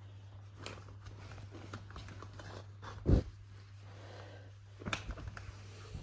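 Something being opened and handled: rustling and small clicks, with one loud thump about three seconds in and a lighter knock near five seconds, over a steady low hum.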